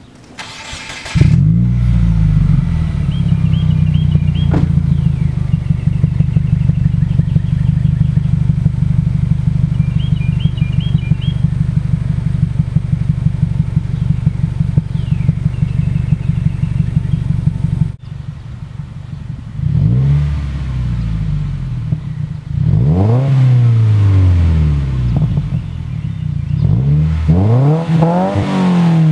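2015 Subaru WRX's turbocharged 2.0-litre flat-four through an Invidia N1 stainless-tip catback exhaust, warm start: the starter cranks briefly, then the engine catches and settles into a steady idle. Then come three revs from idle, each higher than the last, the final one to about 6,000 rpm, each falling back to idle.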